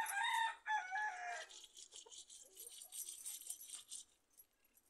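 A rooster crowing once, a call about a second and a half long, followed by a couple of seconds of scratchy scraping as small fish are rubbed against a stone to clean them.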